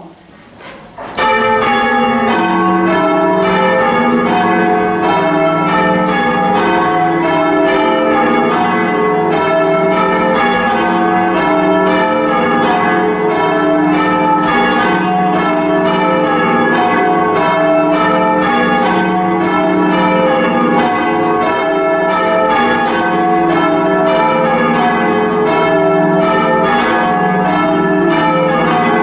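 Church bells change ringing: a steady, continuous peal of overlapping bell strikes that cuts in abruptly about a second in.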